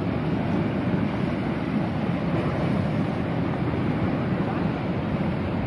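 Steady rush of a fast-flowing river, a dense, even low noise with no breaks, mixed with wind buffeting the microphone.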